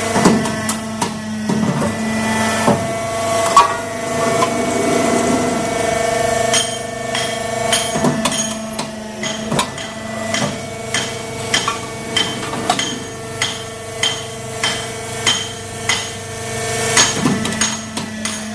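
Shelf-upright forming machine running with a steady hum, its press striking the metal in sharp clanks, irregular at first and then settling into a regular rhythm of about one and a half strikes a second.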